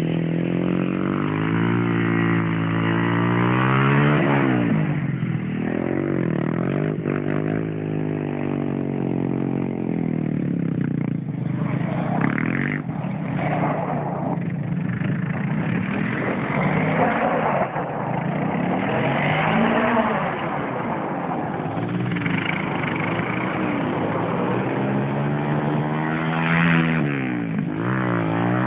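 Yamaha ATV engines revving up and down over and over on the ice, the pitch rising and falling as the machines speed up, slow down and spin.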